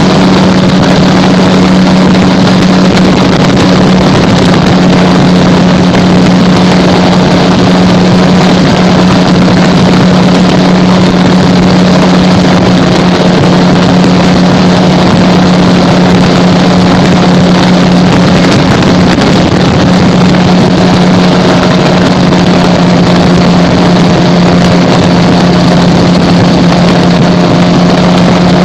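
Gyrocopter engine and propeller running steadily in flight, loud and even in pitch, with wind rushing over the microphone.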